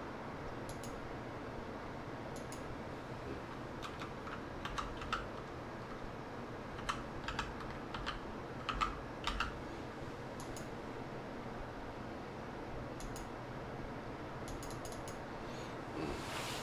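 Computer keyboard typing: scattered short key clicks in small clusters with pauses between, over a faint steady room hum.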